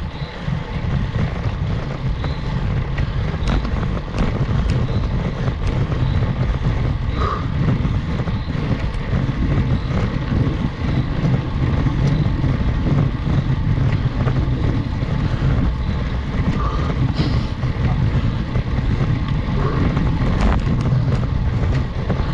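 Wind buffeting the microphone of a GoPro on a road bike climbing a steep road, a low rumble that rises and falls unevenly, with a light high chirp about once a second.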